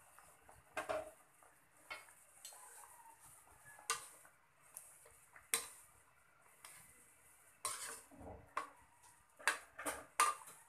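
Metal ladle stirring pork steak in a metal wok, scraping and knocking against the pan at irregular intervals. Under it comes a faint hiss from the simmering sauce.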